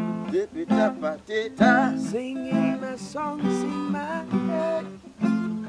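Acoustic guitar strummed in a reggae song, with a man singing a melodic line over it between lyric phrases.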